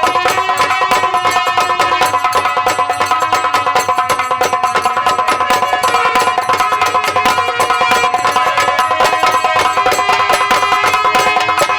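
Live Indian folk band music of the kind played for nautanki: rapid, even hand-drum strokes over steady held melodic tones.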